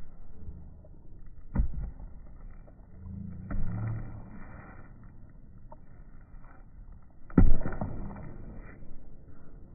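A basketball bouncing a few times on an outdoor asphalt court, with a sharp thud each bounce and the loudest bounces about seven seconds in, over a low rumbling background noise.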